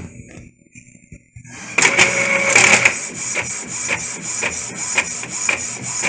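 Epson L3210 EcoTank inkjet printer printing a test page. It starts up loudly about a second and a half in, then runs with a steady whine and a regular click about twice a second as the print head travels back and forth.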